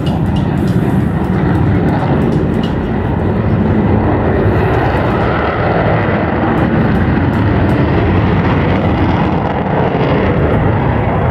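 Avro Vulcan bomber's four Rolls-Royce Olympus turbojets as the aircraft flies past in a banking turn, a loud, steady jet roar.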